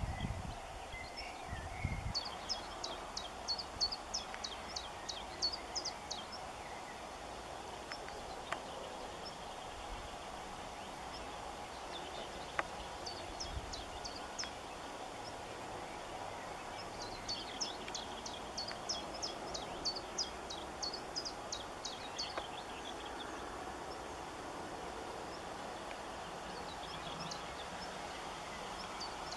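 A songbird singing in phrases of short, high, quickly repeated notes, about four a second. There are several bursts of a few seconds each, over a steady low background noise.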